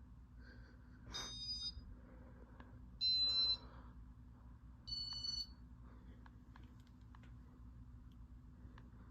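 Three short electronic beeps about two seconds apart, each lasting about half a second, with the middle one the loudest. They come from the Casablanca Meridian ceiling fan's control as it cycles through demo mode. A faint steady hum and a few light clicks sit beneath them.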